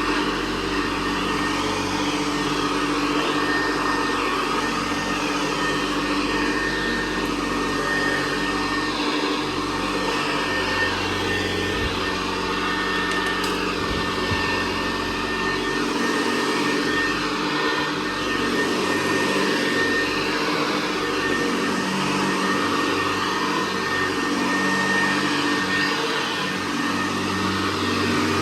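Hoover Convertible Model 68 upright vacuum cleaner, a direct-air machine from 1961, running steadily with a high whine over its motor hum.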